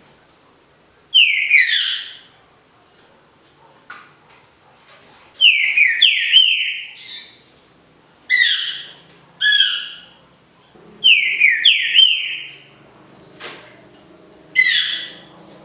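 A green-winged saltator (trinca-ferro) singing the Paraná-style smooth song ('canto liso'): loud whistled phrases of quick sliding notes, about six of them, with pauses of a second or two between.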